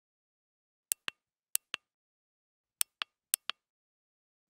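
Buttons on a Zoom H6 handheld recorder being pressed: four double clicks, each a sharp click followed a fraction of a second later by a softer one.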